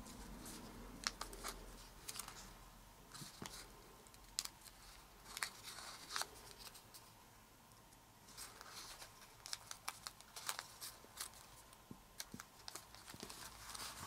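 Origami paper being folded and creased by hand: faint, scattered crinkles and crackles of the paper, with a pause about seven seconds in.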